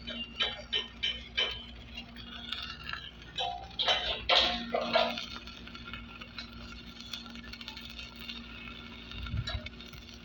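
Light metallic clinks and taps, several a second at first and a few louder ones about four seconds in, then a steady hiss with a low hum.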